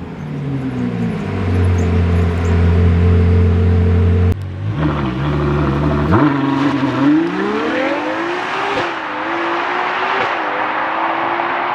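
Ferrari Daytona SP3's naturally aspirated 6.5-litre V12 settling from a rev back to a steady idle. After an abrupt cut about four seconds in, it idles briefly, then accelerates hard with rising pitch, broken twice by quick upshifts.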